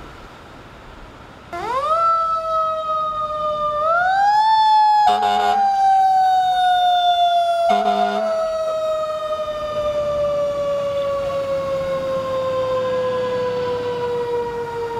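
Fire engine siren starting about a second and a half in, rising in pitch twice, then falling slowly in one long wail. Two short blasts of the fire engine's air horn cut in at about five and eight seconds.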